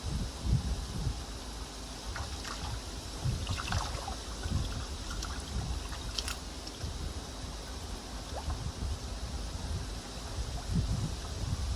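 Water splashing and trickling in a tub as koi fry are netted and sorted by hand, with irregular low rumbles and a sharp click about six seconds in.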